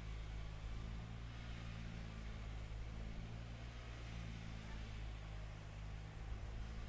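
A Gomaco GT3600 curb and gutter slipform paver's engine running steadily: a faint, even low hum.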